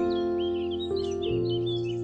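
Soothing ambient music of held, slowly changing notes, with small birds chirping quickly over it.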